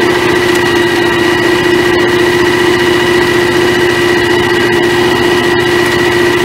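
John Deere X738 garden tractor's engine running steadily, a constant hum with a higher whine over it.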